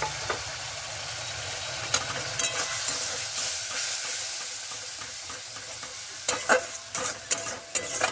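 Spice masala sizzling in hot oil in a steel kadai just after a splash of water, being slowly stir-fried (koshano). A metal spatula scrapes and clicks against the pan, a few strokes about two seconds in and a busier run from about six seconds in.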